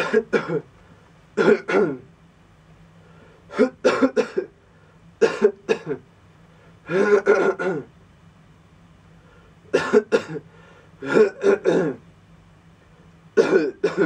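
A man coughing on purpose close into a studio microphone, staged coughs for a recording: about eight short fits of two or three coughs each, a second or two apart.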